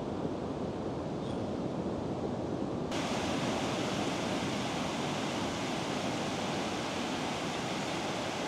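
Ocean surf washing on a beach, a steady rushing noise. About three seconds in the sound cuts abruptly to a brighter, steady hiss.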